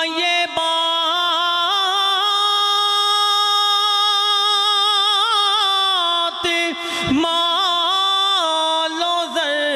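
A man singing a naat into a microphone, holding long high notes with wavering melismatic turns. He pauses briefly for breath about half a second in and again around seven seconds in.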